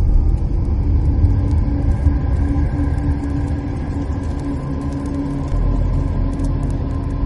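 Deep, steady rumble with a faint held hum and scattered small crackles. This is a cinematic sound effect laid under a fiery title animation.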